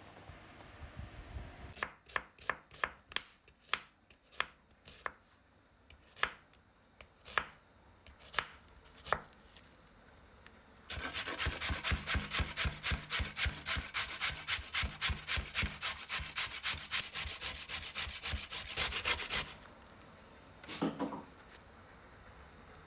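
Water boiling in a pot briefly, then single knife strokes on a wooden cutting board, then a carrot being grated on a stainless steel box grater: fast, even rasping strokes for about eight seconds that are the loudest part.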